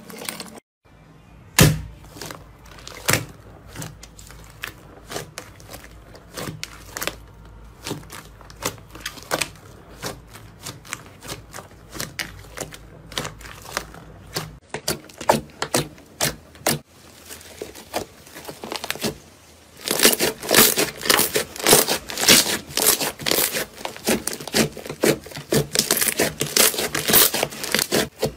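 Slime being squeezed, stretched and pressed by hands, giving irregular sticky clicks, pops and crackles. The crackling becomes much denser and louder in the last third.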